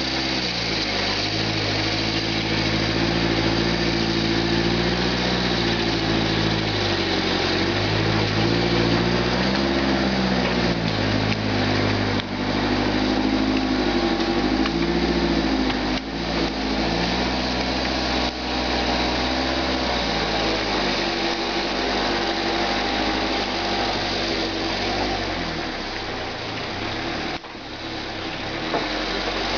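Engine of a homemade log forwarder running as the loaded machine drives past, its pitch rising and falling several times with the throttle before settling steadier in the last third.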